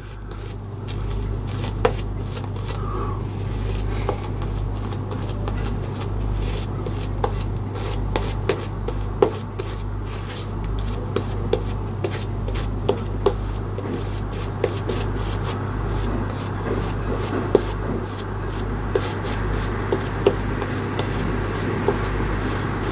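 Synthetic shaving brush working soap into lather in a small bowl: a steady rubbing, with scattered light clicks.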